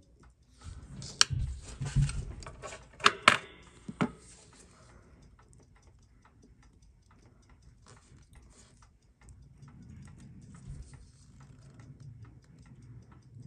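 Sharp little clicks and knocks of the watch and steel tweezers being handled during the first four seconds, then the faint, quick ticking of the running Seiko 6217 automatic movement as its winding rotor is lifted off.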